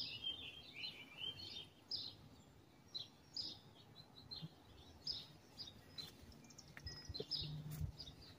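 Small birds chirping: short high notes, a quick run of them at first, then single chirps about once a second, over faint background rumble.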